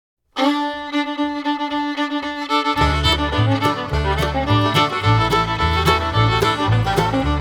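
Background fiddle music that starts suddenly about half a second in after dead silence, with a low bass line joining about three seconds in under a steady beat.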